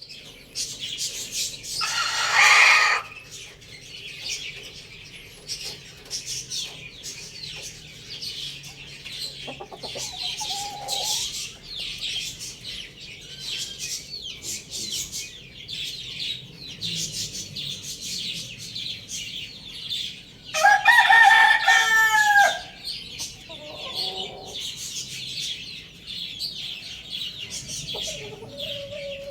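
Young rooster crowing twice, a harsh crow about two seconds in and a clearer, falling crow about twenty-one seconds in, with a few short clucks between. A constant high chirping of small birds runs underneath.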